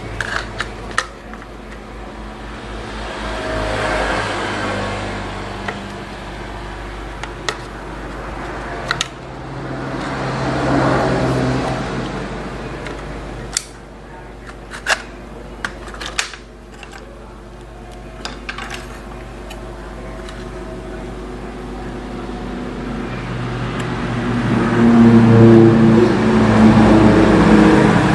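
A steady low electrical hum, broken by scattered sharp clicks and taps of handling on the workbench. A louder rumbling drone swells up twice mid-way and builds up loudest near the end.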